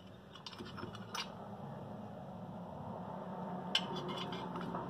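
Faint clicks and light taps of small carburetor parts being handled and fitted together, over a steady low hum.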